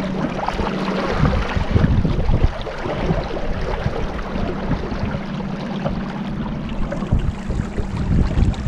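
Motorboat engine running steadily at cruising speed, a constant low hum under the rush of water and wind.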